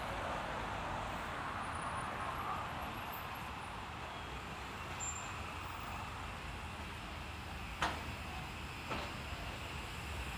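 City street ambience: a steady wash of traffic noise, with two sharp knocks about eight and nine seconds in.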